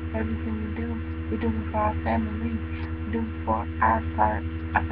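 Steady electrical mains hum picked up by a webcam's microphone, with a few faint, brief pitched sounds about two and four seconds in.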